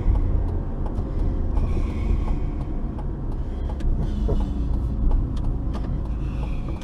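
Car being driven: a steady low rumble of engine and road noise, with a hiss that swells and fades about two seconds in and again near the end.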